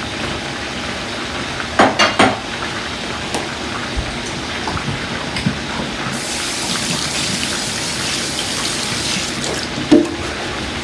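Water running from a kitchen tap into a sink, turning hissier about six seconds in, with a few short knocks of dishes or utensils, twice.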